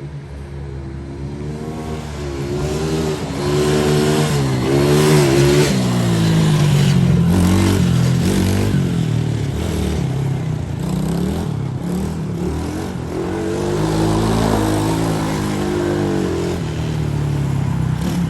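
Small single-cylinder four-stroke engine of a 125cc Coolster ATV being ridden, its pitch climbing and dropping again and again as the throttle is opened and let off.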